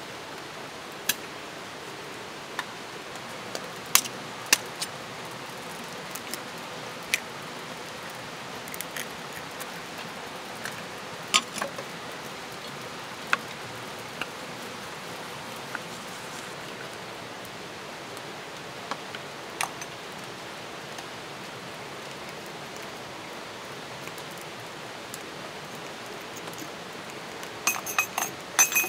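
Eggs being cracked with a knife into a wooden bowl and small kitchen utensils clinking: scattered sharp taps and clinks, with a quick cluster of them near the end, over a steady background hiss.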